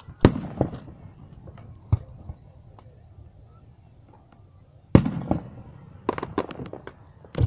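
Aerial firework shells bursting. A sharp boom comes just after the start, a smaller one about two seconds in, and the loudest about five seconds in, followed near the end by a quick run of pops and crackles.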